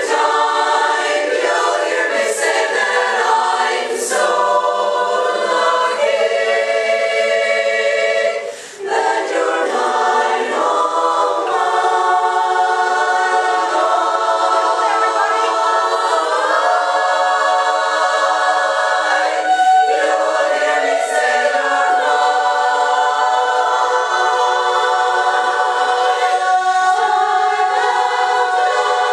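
Women's chorus singing a cappella in held, blended chords, with a brief break for breath about nine seconds in.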